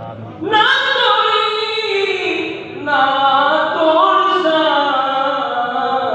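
A man reciting a naat, an Islamic devotional song, unaccompanied into a microphone, singing long held, gliding melodic phrases. The first phrase starts about half a second in, and a second begins just before the three-second mark.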